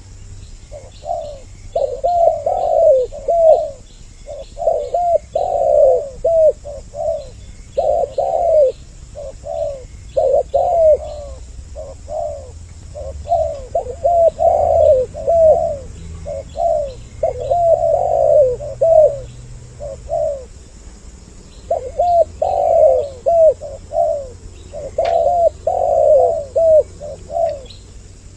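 Spotted doves (tekukur) cooing in repeated phrases with brief pauses between them, from a lure-call recording used to draw doves in. Faint high chirps of small birds are heard behind the coos.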